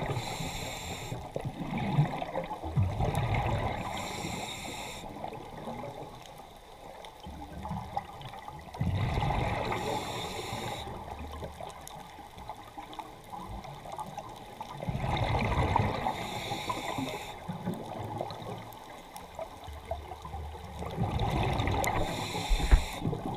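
Scuba diver breathing through a regulator underwater: bursts of exhaled bubbles gurgling and rumbling, with a hiss above them, about every six seconds and quieter between breaths.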